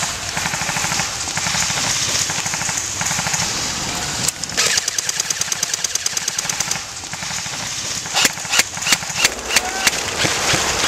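Airsoft electric rifles firing: a fast, evenly spaced clattering burst on full auto lasting about two and a half seconds near the middle, then a run of quick, irregular single shots near the end, over a steady rapid rattle of fire in the first few seconds.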